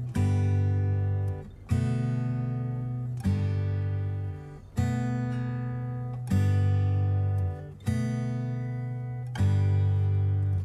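Background music: an acoustic guitar strums seven chords, about one every second and a half, and each chord rings and fades before the next.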